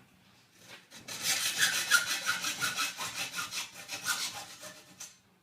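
Hand hacksaw with a 32-teeth-per-inch blade cutting through thin steel cable tray: a run of quick back-and-forth strokes that starts about a second in and stops near the end.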